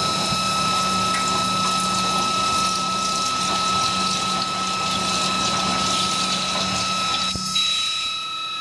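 CNC drilling machine running: a steady high whine over a lower hum and a hissing wash. About seven and a half seconds in there is a click, and the hum and hiss cut off while the whine continues.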